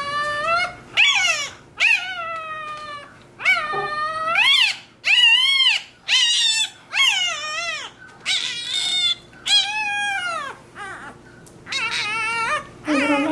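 Newborn Rottweiler puppy crying in a run of about a dozen high, shrill squeals, each rising and then falling in pitch, with short gaps between them: distress cries while it is held for tail docking.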